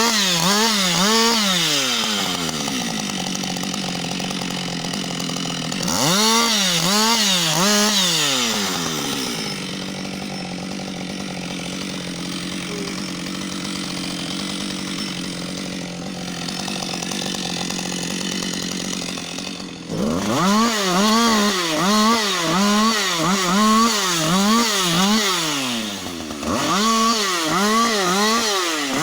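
Husqvarna 560 XP two-stroke chainsaw running at high revs while cutting wood. In several stretches its pitch swings up and down about twice a second, and in between it holds steadier for a while, longest through the middle.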